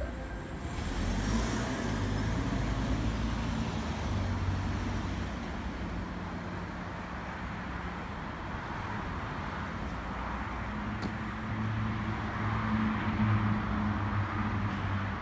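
Steady road traffic noise from surrounding streets, with a low engine hum that grows louder a few seconds before the end.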